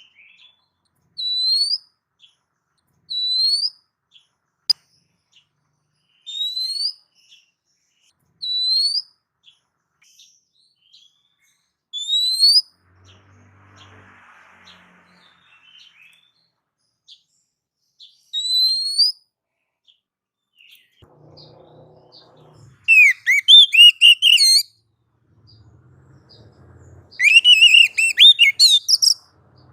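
Oriental magpie-robin (kacer) singing: a series of short, rising whistled notes about every two seconds, then two loud, rapid warbling phrases near the end.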